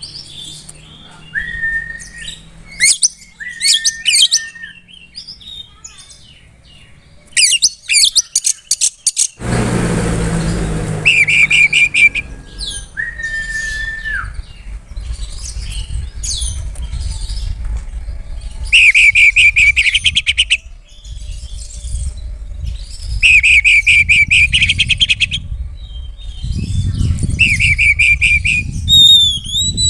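Oriental magpie-robin (kacer) singing vigorously in full song. It alternates clear held whistles with bursts of fast rattling trills, repeated several times. A low rumbling noise starts suddenly about a third of the way in and continues underneath.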